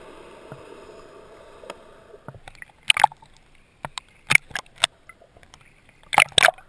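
Muffled water noise at first, then small waves slapping and splashing against the camera as it rides the sea surface. There are sharp splashes about three seconds in, three more between four and five seconds, and two near the end.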